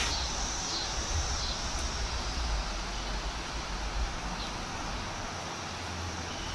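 Outdoor background with an uneven low rumble of wind on the microphone and a steady high hiss that fades about a second and a half in.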